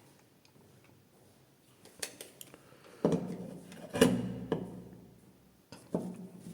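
Hard objects being handled and knocked together: a sharp clack about two seconds in, two louder knocks with a short clatter around three and four seconds, and one more clack near the end.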